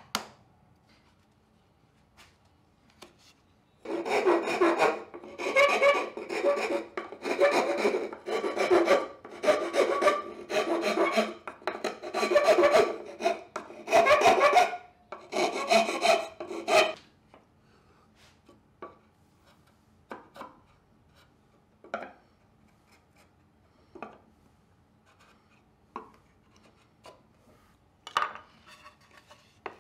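Flat metal file drawn across the end grain of alder dovetail pins, about thirteen rasping strokes roughly one a second, stopping about two-thirds of the way through. A few light taps follow.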